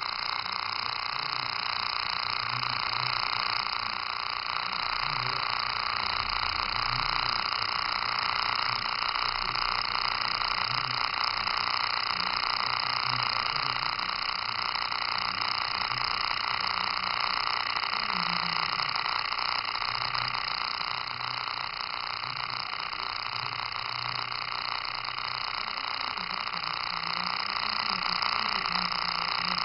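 Six-segment quenched spark gap with 0.25 mm gaps firing continuously, a steady, hiss-like electric buzz of rapid sparkovers across the stacked plates.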